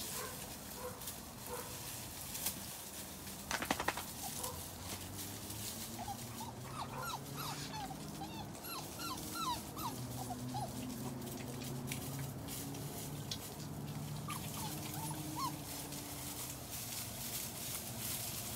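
A litter of five-week-old German Shorthaired Pointer puppies whimpering and squeaking, many short high whines overlapping, thickest once the pups crowd around their mother. Underneath runs a low steady hum, with light rustling clicks and one brief rattle about three and a half seconds in.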